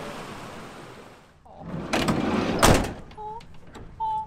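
Surf washing over a rocky shore fades out early. Then a van's sliding side door is run along its track and slammed shut with a loud thunk, followed by a few short high chirps.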